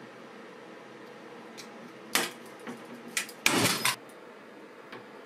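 A 3D-printed plastic bracket cracking and snapping under load: one sharp crack about two seconds in, then a louder half-second burst of cracking and clatter from the metal crane scale and chain about three and a half seconds in.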